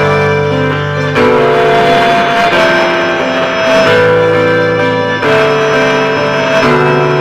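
Instrumental music of held chords that change about every second and a half.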